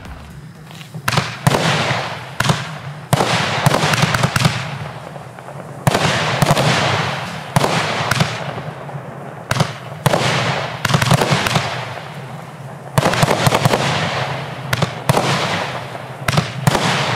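Mephisto consumer fireworks cake firing: sharp shots in quick clusters one after another, each volley trailing off in a fading hiss before the next.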